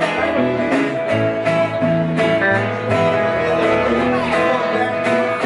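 A live band playing a song on electric guitar, acoustic guitar and upright double bass, with steady strumming over a bass line that steps from note to note about twice a second.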